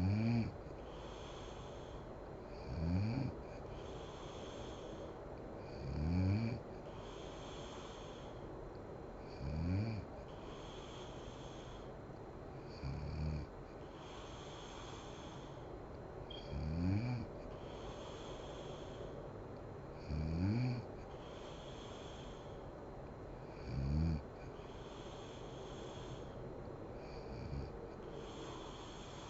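A sleeping woman snoring: a loud snore about every three and a half seconds, nine in all, each rising in pitch, with the last one weaker, over a steady hiss.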